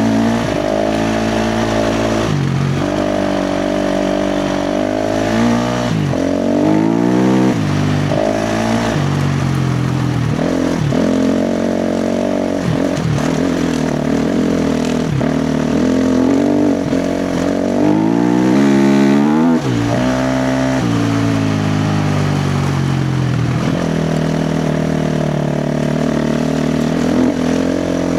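KTM 350 XC-F four-stroke single-cylinder dirt bike engine under hard trail riding, its pitch climbing under throttle and dropping back again and again as the rider works the throttle and gears.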